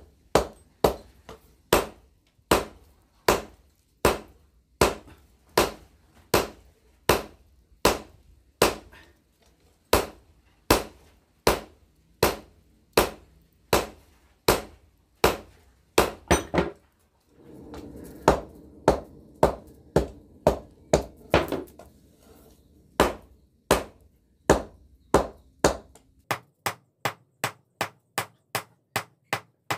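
Hand hammer striking a glowing pamor steel billet on an anvil, in steady single blows about one and a third a second. A rushing noise runs under the blows for a few seconds past the middle, and near the end the blows come quicker and lighter.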